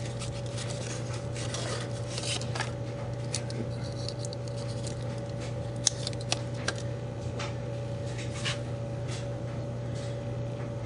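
Small handling noises: scattered light clicks, scratches and rustles, as of something being picked up and unwrapped, over a steady low hum.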